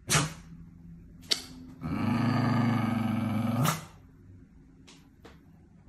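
Shiba Inu growling and snarling while guarding its food bowl. A sharp outburst comes right at the start, then a long low growl of nearly two seconds ends abruptly: food resource-guarding aggression.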